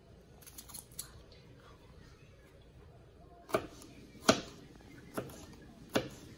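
Kitchen knife slicing bell pepper and knocking down onto a plastic cutting board: a few light taps about half a second in, then four sharp chops over the last three seconds, the second the loudest.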